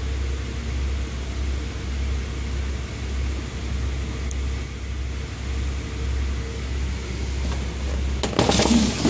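Steady low hum and rumble with a faint steady tone that fades out, then a brief, louder burst of noise a little after eight seconds.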